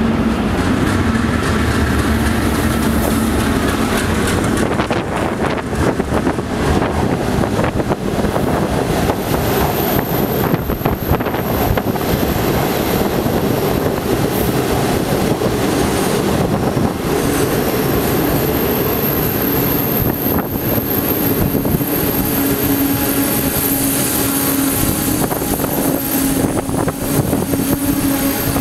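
Passenger train rolling along the platform: a steady, loud rumble of wheels on rail. A thin high whine joins about a third of the way in, and a low hum grows near the end.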